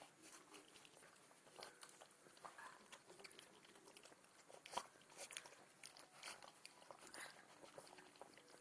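Four-week-old Alaskan Malamute puppies eating from a shallow bowl, one of their first meals besides their mother's milk: faint, irregular smacking and chewing clicks, with one sharper click about five seconds in.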